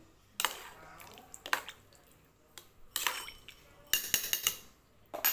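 Metal spoon clinking and scraping against the metal inner pot of a rice cooker while stirring chicken gizzards in adobo liquid. Separate clinks come every second or so, with a quick run of them near the end.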